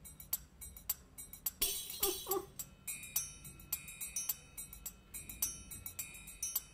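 Soft background music of light, tinkling mallet-percussion notes. A brief vocal murmur sounds about two seconds in.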